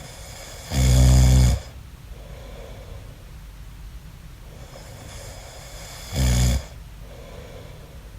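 A man snoring in his sleep: two loud snores, the first about a second in and lasting nearly a second, the second shorter near six seconds in, with faint breathing between them.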